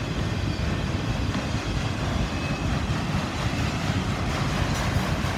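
Freight train of multilevel autorack cars rolling past close by: a steady noise of steel wheels running on the rails.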